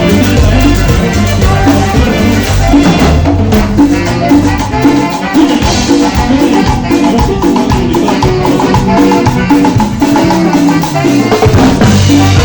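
A live Latin dance band playing an instrumental passage with drums, percussion, bass and melodic instruments at a steady dance beat. The deep bass thins out a few seconds in and comes back near the end.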